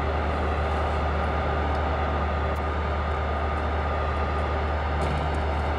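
Steady low hum and rumble of a railway station platform, with a stationary electric high-speed train standing at it; a few faint steady tones ride over the hum.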